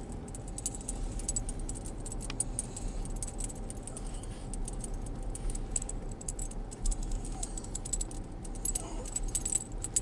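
Small metal tags jingling rapidly and continually, with a low steady car-cabin rumble underneath.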